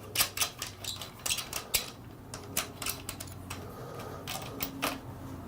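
Irregular sharp metallic clicks and taps from hand tools and metal handguard-mount hardware being handled and fitted. The clicks come thick and fast for the first couple of seconds, then thin out to a few scattered taps.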